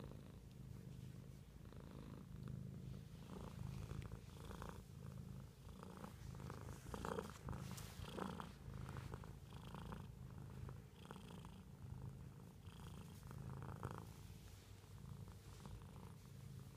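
Domestic cat purring close up, a steady low purr that pulses throughout, with a few brief faint higher sounds over it, loudest around seven to eight seconds in.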